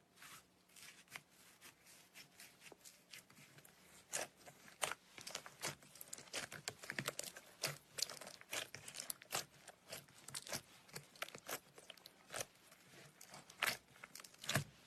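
Slime being squished and worked by hand, crackling with many sharp clicks and pops, sparse at first and denser and louder from about four seconds in.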